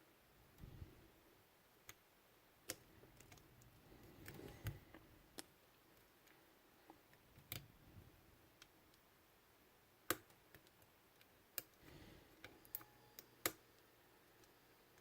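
Faint, irregular metallic clicks and ticks of a lock pick and tension wrench working the pins inside a Cisa padlock's keyway, with the loudest click about ten seconds in and some soft handling rumble.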